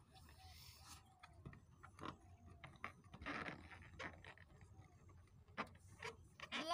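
Faint taps and rubbing of hands handling large inflated latex balloons, with a brief breathy rush about three seconds in. A short squeal comes right at the end.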